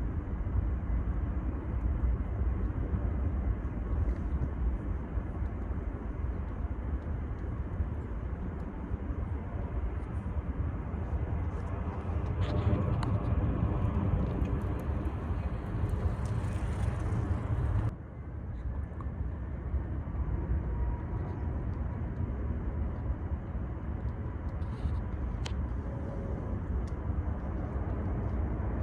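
Outdoor rumble of a jet airliner near the airport. It swells louder and fuller about twelve seconds in, then cuts off suddenly about six seconds later, leaving a steadier low background rumble.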